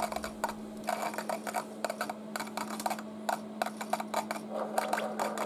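Homemade resistor-capacitor EDM spark-eroding machine burning with a copper electrode in a vegetable-oil dielectric: a dense, irregular crackle of spark discharges over a steady low hum.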